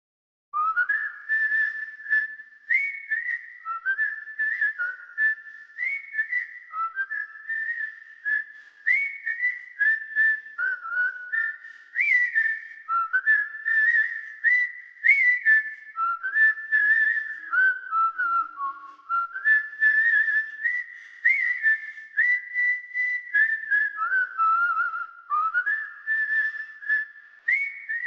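A whistled tune: a bright melody of short notes stepping up and down, starting abruptly about half a second in.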